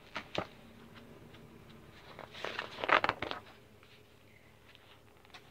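Picture-book pages being handled and turned: a couple of light taps near the start, then a brief rustling sweep of paper about two seconds in.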